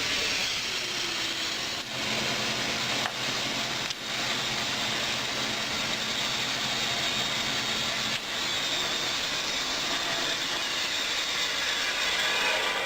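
Band saw resawing a small piece of wood: a steady hiss of the blade cutting over the low hum of the motor, with a few brief dips, dying down at the very end.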